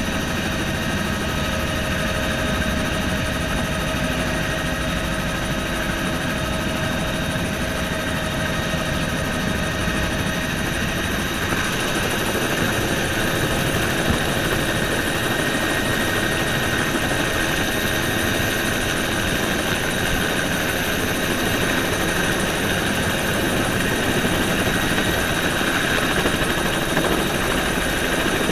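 Bell helicopter running, heard from aboard: steady rotor and engine noise with a constant high whine, as it moves low over the airport apron.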